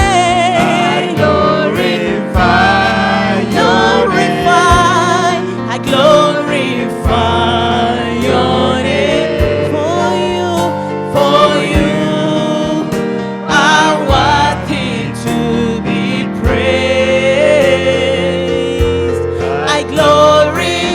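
Live gospel worship music: voices singing over keyboard and bass with a slow beat.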